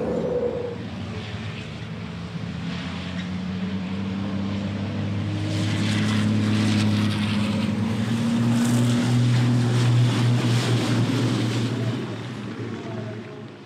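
Race trucks' turbo-diesel engines running as the trucks race past. The sound builds over several seconds, is loudest in the middle, and drops away about a second before the end.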